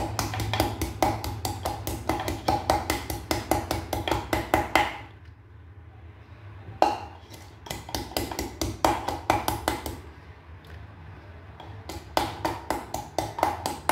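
Wooden pestle pounding garlic cloves and salt in a wooden mortar, mashing them to a paste: quick repeated knocks, about four or five a second, in three bouts with short pauses between.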